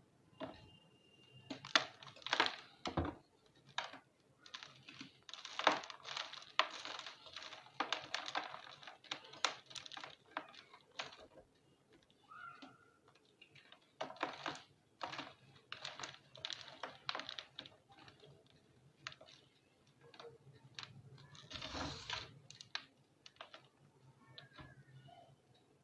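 A block of reformed yellow gym chalk being crushed, crunching and crackling in bursts of crisp clicks with short pauses between.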